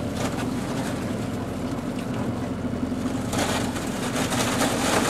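Outboard motor running steadily as the boat breaks through thin lake ice, the ice crackling and scraping along the hull; the crackle grows louder about three seconds in.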